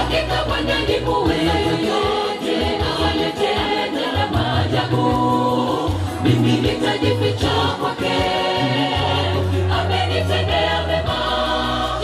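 A mixed choir sings a gospel song in harmony over a deep bass line whose notes change every second or two.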